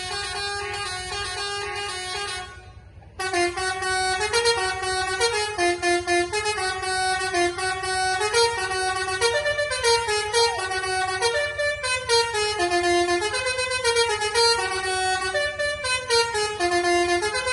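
Basuri multi-tone bus horn ('telolet') playing a tune in quick stepped notes. It breaks off briefly about three seconds in, then starts again and keeps going.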